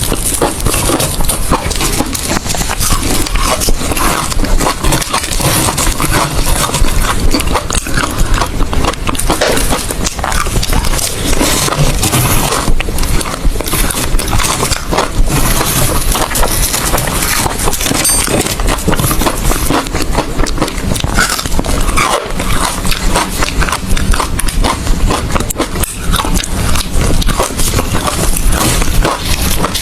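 Close-miked crunching and chewing of hard ice, a dense, unbroken run of irregular crackling crunches.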